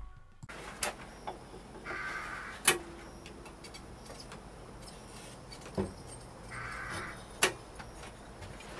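Workshop handling noises: a few scattered sharp knocks and clicks, the loudest about three seconds in, and two short harsh rasping sounds a few seconds apart.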